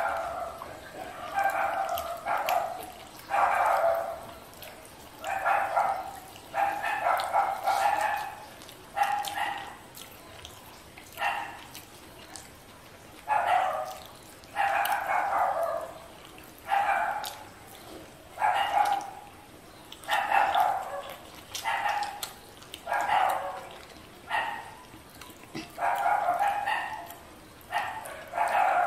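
A dog barking again and again, a bark or short run of barks about every second. Faint sharp clicks come between the barks.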